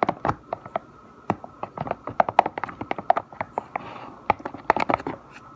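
A stick stirring glue slime mixture in a plastic container, clicking and knocking against the container's sides in quick irregular taps, several a second.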